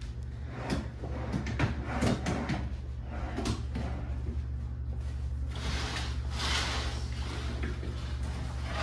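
Drawers and cabinet doors being pulled open and pushed shut during a hurried search of a hotel room, a string of knocks and bangs in the first few seconds. Then comes a stretch of rustling and shuffling, all over a steady low hum.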